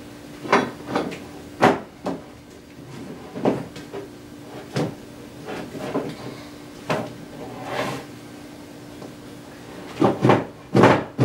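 Wooden flagpole sections being handled and fitted together at a glued joint: irregular knocks and clunks, with a cluster of louder ones near the end. A faint steady hum runs underneath.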